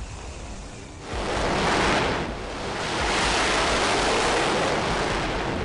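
Ocean waves surging: a rushing wash of sea noise that swells up about a second in, dips briefly, then swells again and holds.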